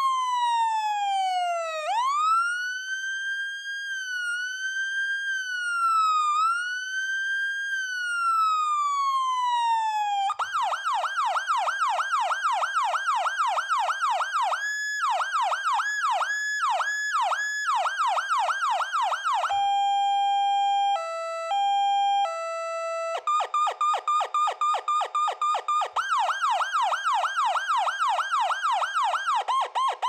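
Federal Signal PA200 electronic siren sounding through its tones. It starts with a slow wail gliding up and down, then switches to a rapid yelp about ten seconds in. Around twenty seconds in comes an uneven two-pitch hi-lo with breaks, which the owner says does not work properly. After that come fast yelp-like sweeps again.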